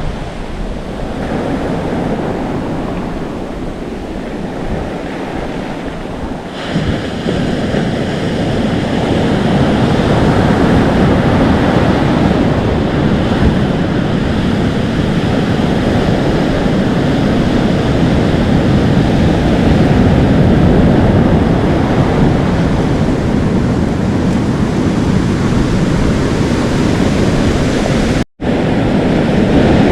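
Atlantic Ocean surf: waves washing in, foaming and sizzling, with wind buffeting the microphone. The surf grows louder about six seconds in, and the sound cuts out for an instant near the end.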